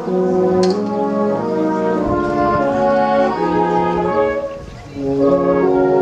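Wind band playing a tune with the brass to the fore, moving through held notes and chords, with a short breath between phrases a little before the end.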